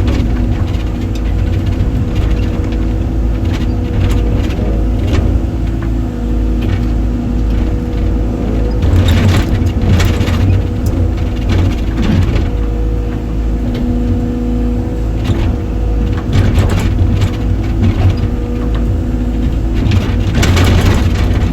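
Excavator engine running steadily under load, with several short bursts of cracking and scraping as it digs.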